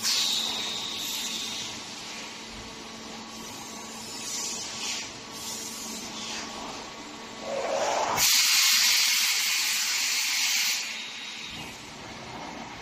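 Sofa compression roll-packing machine running with a steady hum and hiss; past the middle a short rising whine leads into a loud hiss that lasts about two and a half seconds, then stops.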